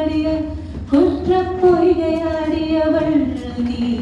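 A woman singing solo into a microphone, unaccompanied, holding long drawn-out notes with a short breath about a second in and a drop to lower notes near the end.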